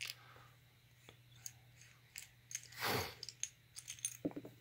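Light clicks, ticks and scrapes of small metal parts as a flashlight light engine is unscrewed by hand from its metal head. There is a brief louder rush of rubbing noise about three seconds in, and a few quick knocks near the end.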